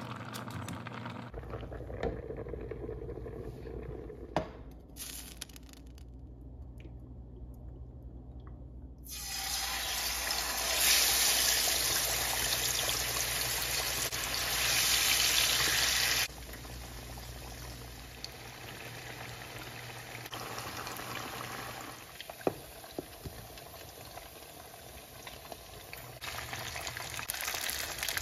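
Food cooking on a stove: plantains boiling in a pot, then salmon frying in oil in a pan. The bubbling hiss gets much louder for about seven seconds in the middle, stops suddenly, and rises again near the end.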